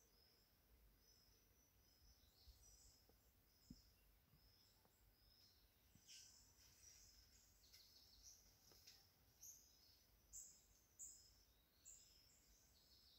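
Faint forest ambience with small birds chirping in short, high calls throughout, a few louder chirps in the second half.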